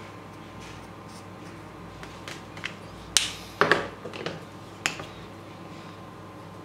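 A short run of sharp plastic clicks and knocks, loudest a little past the middle, as a felt-tip marker is capped and another is uncapped and picked up.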